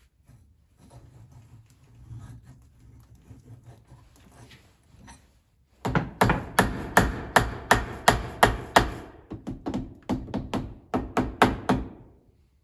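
Mallet striking the end cap of a hydraulic cylinder held in a bench vise, knocking it loose to take the cylinder apart. Faint handling noises come first, then from about six seconds in a rapid series of sharp blows, about three a second, with a short pause around nine seconds.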